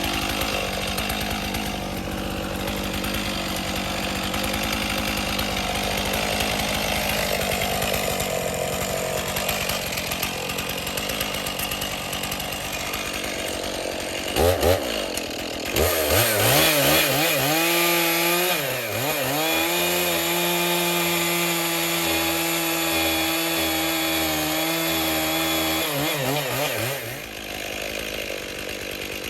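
Stihl two-stroke chainsaw running at a lower, wavering pitch for about fourteen seconds. It then revs sharply and holds a high, steady pitch for about ten seconds, with a brief dip partway, and drops back near the end.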